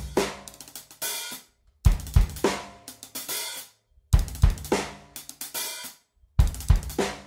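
Drum kit played with sticks: a short phrase of kick drum and hits on a small kids' snare drum, followed by a ringing cymbal, played three times, once about every two seconds.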